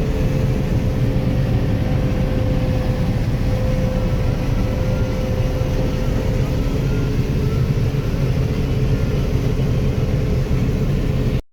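Farm machinery's diesel engine running steadily under load, heard from inside the cab: a dense low rumble with a thin, steady whine over it. The sound cuts out abruptly for a moment at the very end.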